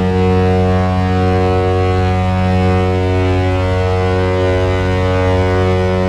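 San Jose Sharks goal horn sounding one long, steady, deep blast, signalling a Sharks goal.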